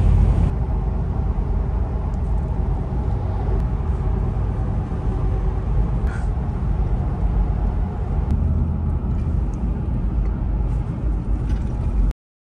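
Steady low road and engine rumble heard from inside a moving vehicle's cabin while driving. It cuts off suddenly near the end.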